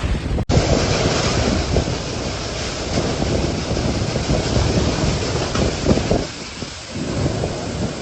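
Typhoon wind rushing and buffeting the microphone in dense, rumbling gusts, with a hard cut to another clip about half a second in.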